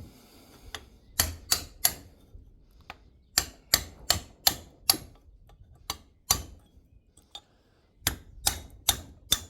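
Hammer blows on metal, driving the old bearing out of a tractor wheel hub: sharp ringing strikes in groups of two to five, about three a second, with short pauses between the groups.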